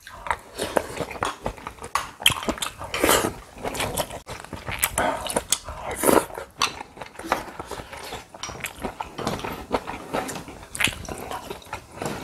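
Close-miked eating sounds from two people: chewing and smacking of mouths, with spoons and chopsticks clicking against ceramic bowls in short, irregular clicks.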